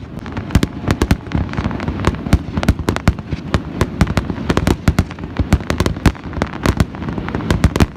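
Fireworks display going off in rapid succession: dense, irregular bangs and crackles, several every second, over a continuous rumble.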